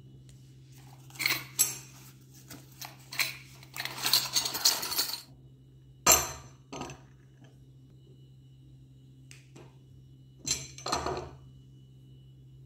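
Stainless steel kitchen mixer tap handled on a stone countertop: several clusters of metallic clinks and knocks as its lever handle and swivel spout are moved, the sharpest knock about six seconds in. A steady low hum runs underneath.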